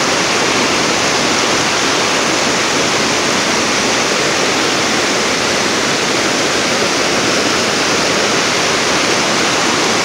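Mountain river rushing over rocks and small cascades: a steady, unbroken rush of white water.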